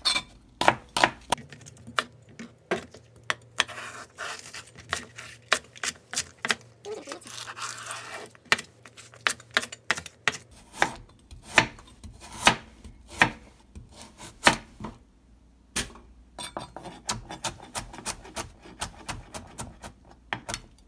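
Kitchen knife chopping vegetables on a cutting board: a run of sharp, irregular knocks as the blade strikes the board, several a second, with a brief pause about two-thirds of the way through. The knife slices onion first, then leafy greens, then carrot.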